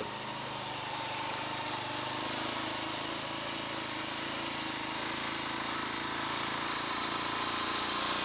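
Small motorbike engine running steadily while the bike rides along, getting a little louder after the first second.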